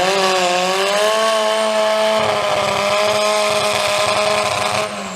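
Chainsaw engine revved up and held at a steady high pitch at full throttle, easing off near the end.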